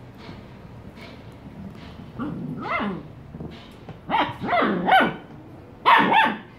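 Black Labrador retriever puppy barking and yipping in three short bursts, about two, four and six seconds in, growing louder toward the end.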